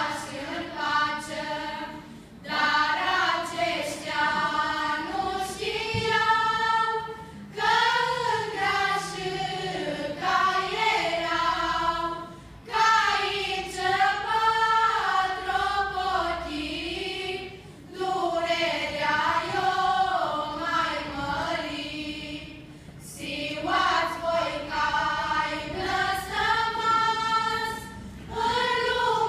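Romanian folk choir of women and girls singing, in phrases of about five seconds with a short breath between each.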